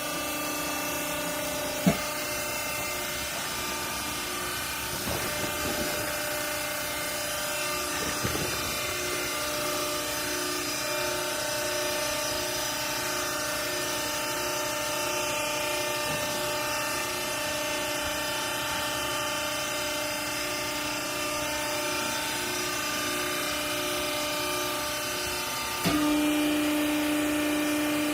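Garment baler's hydraulic pump motor running with a steady hum, with one sharp knock about two seconds in. Near the end the hum steps up suddenly and runs louder.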